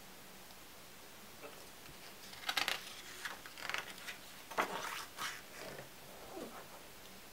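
A page of a large photo-album book being turned by hand: paper rustling in several bursts, loudest about two and a half seconds in and again just past the middle, then dying down as the page settles.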